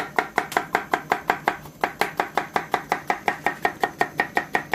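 Kitchen knife slicing red kapya peppers into rings on a wooden cutting board, the blade knocking the board in a quick, steady rhythm of about six strokes a second.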